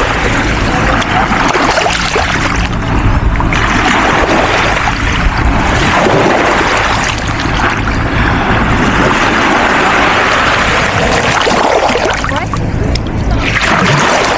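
Sea water washing and surging with wind rumbling on the microphone, a steady loud noise that swells and eases every few seconds.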